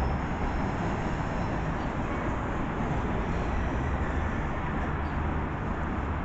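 Steady low rumble with a hiss, even throughout, with no distinct event standing out.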